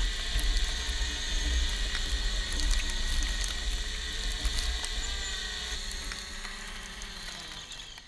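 DJI Mavic Pro quadcopter's propellers and motors whining steadily as it hovers low overhead and sets down, with a low wind rumble on the microphone. Near the end the motors spin down, the whine falling in pitch and fading as it lands.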